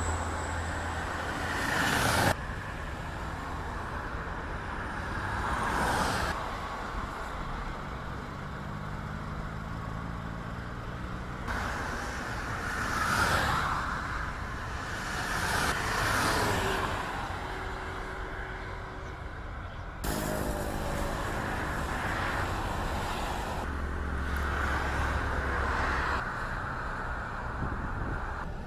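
Outdoor vehicle and traffic noise, with several vehicles swelling up and fading away as they pass.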